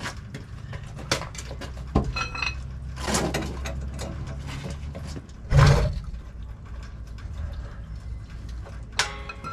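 Footsteps on gravel, then a hydraulic floor jack being worked and released to lower a pickup truck onto its new bump stops: scattered clicks and knocks, a couple of ringing metallic clinks, and one heavy thump a little past halfway.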